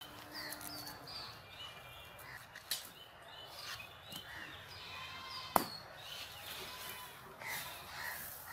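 Birds chirping and calling throughout, with a few crisp snaps as a knife cuts through cauliflower leaves and stalk; the loudest snap comes about five and a half seconds in.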